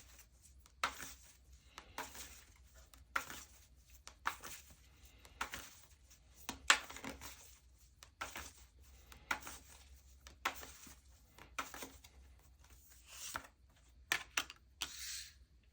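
Tarot cards being shuffled by hand: short papery strokes about once a second.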